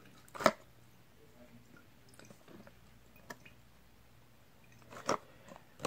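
Quiet handling of a plastic tub and plastic bottle while rubbing alcohol is poured back into the bottle. A few soft plastic clicks and knocks are heard: the sharpest about half a second in, and two more near the end.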